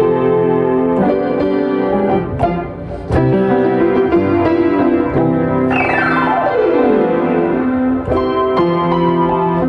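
Steinway piano played live: sustained chords struck in a steady rhythm, with a fast downward glissando sweeping from the top of the keyboard to the bass about six seconds in.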